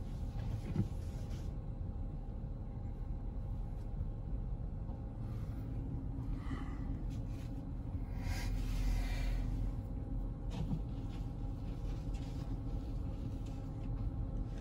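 Car running at low speed, heard from inside the cabin as a steady low rumble, with a short rush of hissing noise about eight seconds in.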